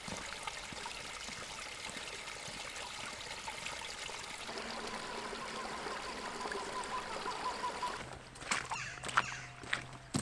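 A small stream trickling and running steadily. Near the end, a few footsteps on a stony track.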